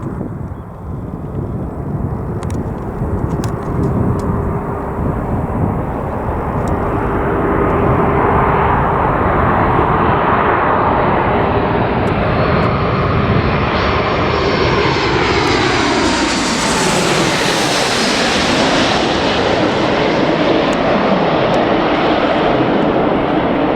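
Landing airliner passing close on final approach. Its engine noise builds, peaks about two-thirds of the way in with a falling whine as it goes by, then stays loud and steady.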